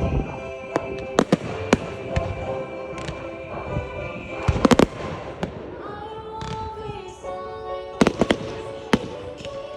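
Fireworks bursting in a series of sharp bangs, with quick clusters near the middle and about eight seconds in, over music with held notes.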